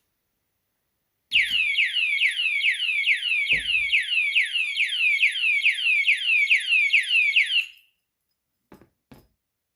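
Motorcycle alarm padlock's siren going off: a loud, rapid series of falling electronic chirps, about three a second, over a steady high whine, starting suddenly with a knock and cutting off after about six seconds. Two faint clicks follow near the end.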